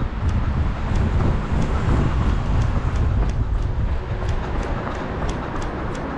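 A runner's footsteps on pavement, about three strides a second, over a steady low rumble of wind on the microphone and road traffic.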